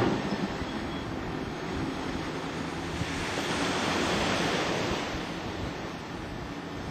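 Sea waves washing with wind on the microphone, a steady rush that swells for a couple of seconds in the middle.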